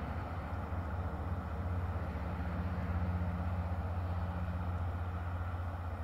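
Low steady rumble of a distant motor vehicle, swelling about halfway through and then fading.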